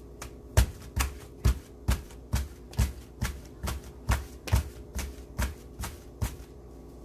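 Soft slapping thuds of hands beating a stack of three freshly fried porottas (layered Kerala flatbread) together, about two strikes a second, stopping near the end. The beating loosens and fluffs apart the flaky layers.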